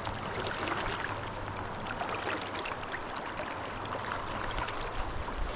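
River water rushing and babbling steadily over a gravel bar, with many small splashes and trickles, over a low steady hum.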